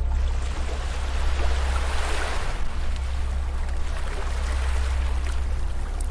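Ocean waves washing onto a beach: a hissing wash that swells to its loudest about two seconds in and then recedes, over a steady low rumble.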